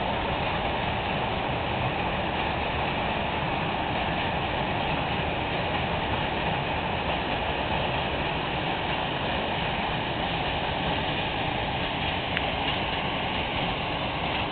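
Wagons of a long freight train rolling past on the rails: a steady, even noise of wheels on track with no change in level.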